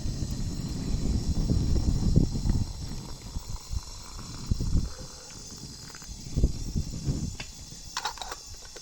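Low outdoor rumble coming in uneven gusts, heaviest in the first few seconds, with a brief high-pitched call about eight seconds in.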